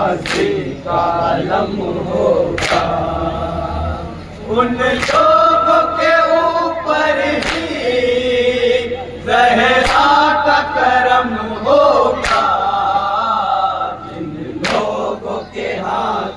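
A group of men chanting a noha in unison, with a sharp collective slap of chest-beating (matam) about every two and a half seconds.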